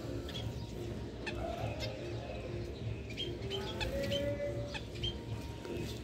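Mixed calls of small caged aviary birds: short high chirps and lower, repeated short notes, one of them held for about half a second just after the middle, over a steady low rumble.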